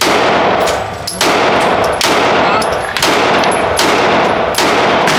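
Pistol fired five times in steady succession, about a shot a second, each shot sharp and loud with its sound lingering into the gap before the next.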